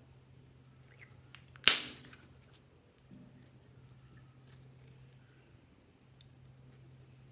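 Slime being worked by hand, making faint small sticky clicks, with one sharp, loud snap about a second and a half in that fades quickly.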